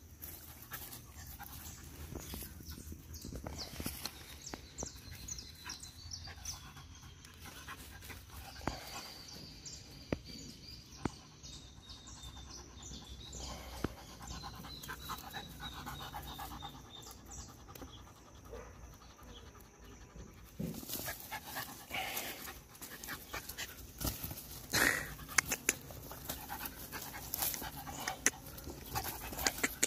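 Bandog puppy panting hard with its tongue out after several minutes of prey-drive training. The panting grows louder and denser about two-thirds of the way through.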